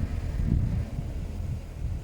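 Chery Tiggo 7 Pro running with a steady low hum, the noise the owner puts down to a noisy water pump. Irregular rumbling gusts of wind on the microphone are the loudest thing, with the strongest about half a second in.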